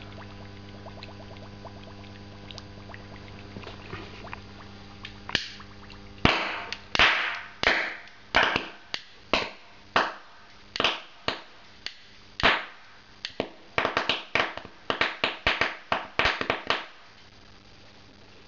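HHO (oxyhydrogen) gas bubbling up through a glass of water from an electrolysis generator, then being lit with a lighter at the surface: sharp pops one after another, about twenty in all, starting about five seconds in and coming faster near the end. Before the pops, the gas bubbles in the water over a steady hum.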